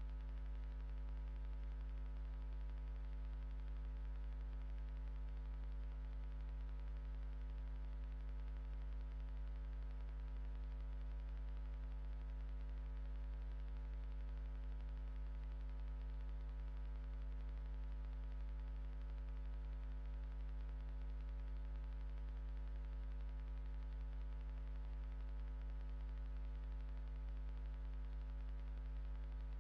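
Steady electrical mains hum, a deep drone with many evenly spaced overtones, over a faint hiss.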